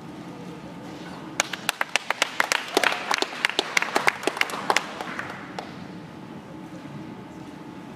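Scattered clapping from a few spectators, starting about a second and a half in and lasting about three and a half seconds.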